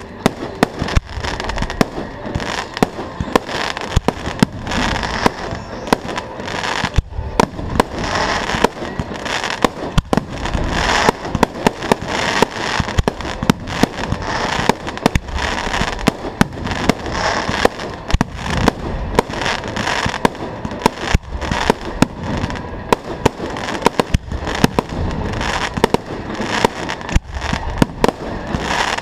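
Fireworks display: a rapid, unbroken barrage of shell bursts and reports, several bangs a second over a continuous crackle.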